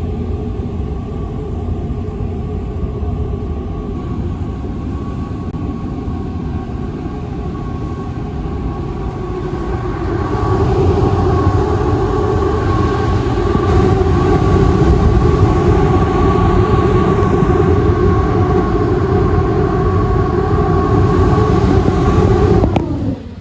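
Air conditioner running with a steady hum and a whining tone, getting louder about ten seconds in, then dropping away sharply with a falling pitch near the end.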